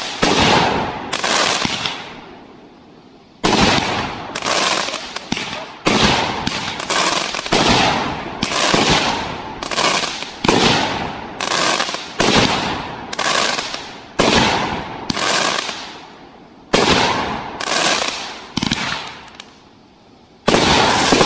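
Backyard firework shells bursting overhead in quick succession, about one or two a second, each bang trailing off in a fading crackle. There is a short lull about two seconds in and another near the end.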